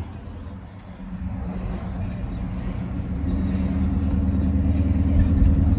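1967 Pontiac GTO's V8 engine running, heard from inside the car, growing steadily louder after the first second.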